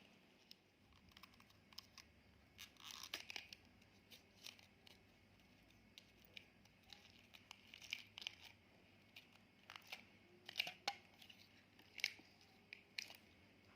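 Clear slime being handled, giving quiet, scattered sticky clicks and crackles that come in small clusters.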